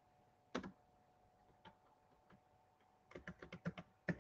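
Typing on a computer keyboard: a single keystroke about half a second in, a few faint taps, then a quick run of about eight keystrokes near the end, over a faint steady hum.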